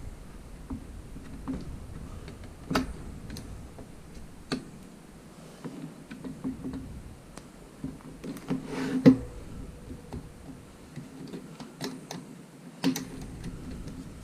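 Scattered clicks and knocks of the plastic case and parts of a Pro-face touchscreen panel being handled and set down during disassembly, the loudest about nine seconds in.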